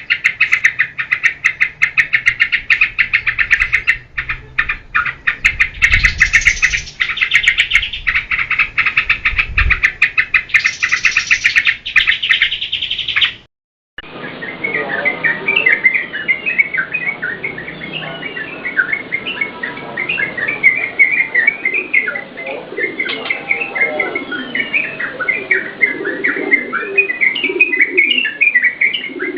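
Yellow-vented bulbuls (trucukan) singing. First a dense, very fast chattering. Then, after a sudden cut about halfway through, looser bursts of quick chirping notes.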